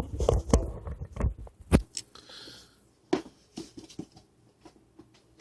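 Handling noise: a quick run of clicks and knocks in the first two seconds, then a soft rustle and a few scattered taps.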